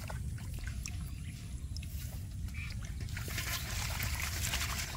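Water splashing and sloshing in a pot holding freshly caught fish, louder for the last second and a half, over a steady low rumble.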